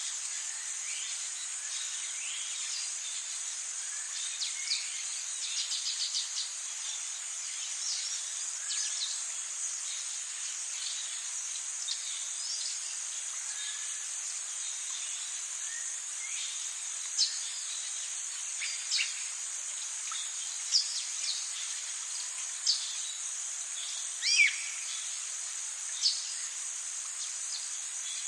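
Tropical forest ambience: a steady, high-pitched insect drone with many scattered bird chirps and calls over it. A few louder, short calls come in the second half.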